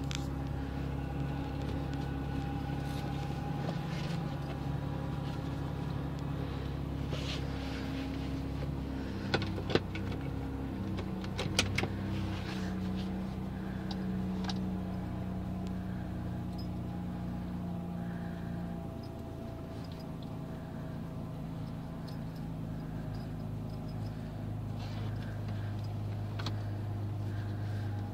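2014 Chrysler Town & Country's 3.6-litre V6 idling shortly after a cold start, heard from the driver's seat; the idle note shifts a couple of times as it settles. A few sharp clicks sound around ten and twelve seconds in.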